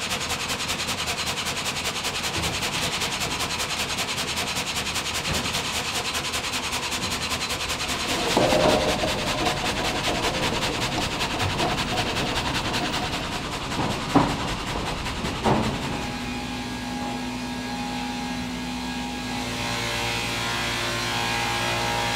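Sawmill machinery running: log saws and roller conveyors cutting and moving timber, first with a fast, even mechanical rattle. Two sharp knocks come a little over a second apart about two-thirds of the way in, and the run ends in a steadier motor hum with a low tone.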